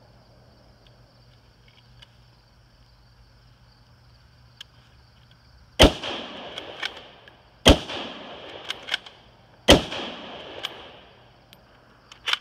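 Three shots from a .308 Ruger Gunsite Scout bolt-action rifle, about two seconds apart, with the bolt being worked between them in quick sharp clicks.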